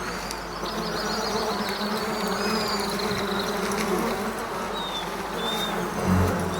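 A steady buzzing hum with short high bird chirps over it, and a low thump near the end.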